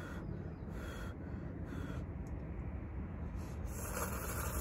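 A crow cawing a few short times, over a steady low rumble. Near the end comes a loud slurp as ramen is sipped from a metal cup.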